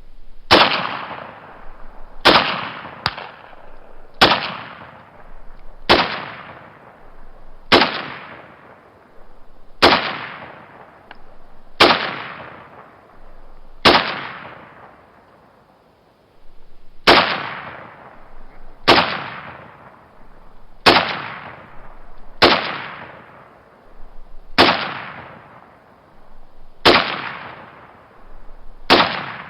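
Single gunshots fired one at a time, about one every second and a half to two seconds, each sharp crack followed by a long echoing tail that dies away. Two shots come close together near the start, and there is a pause of about three seconds midway.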